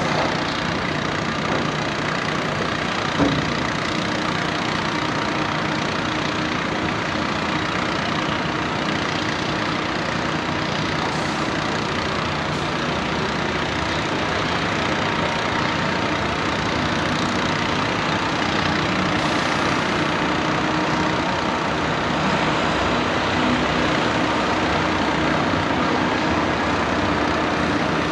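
Heavy diesel engine of an excavator-mounted drilling rig running steadily, with dense mechanical noise and one short knock about three seconds in.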